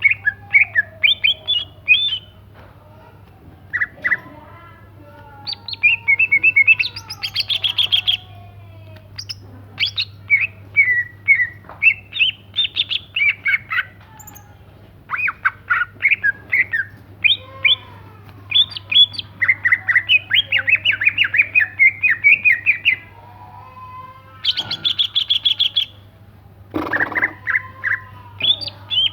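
Green leafbird (cucak ijo) singing vigorously: loud, varied phrases of rapid chirps and trills in bursts of a second or two with short pauses between, over a steady low hum.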